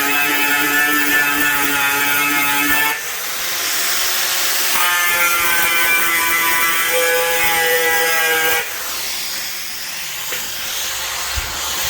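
Angle grinder working on rusty sheet steel: two long passes of a steady motor whine over a hiss, then a lighter hiss for the last few seconds.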